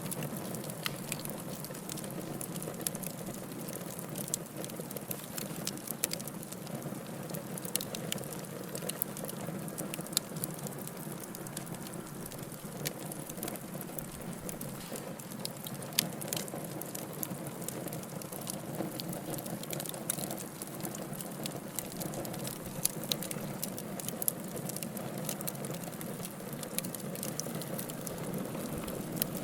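Wood fire burning in a fireplace: a steady low rushing with frequent sharp crackles and pops, one louder pop about halfway through.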